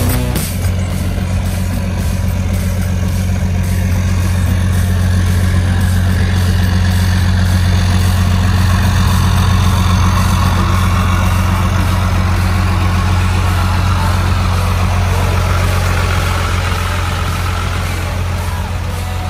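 Vehicle engine idling steadily, a low even note with a hiss above it that grows a little louder midway and eases slightly near the end.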